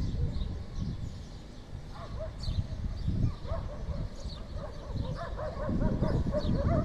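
An animal giving a string of short, repeated pitched calls, several a second, starting about two seconds in, over a low rumble.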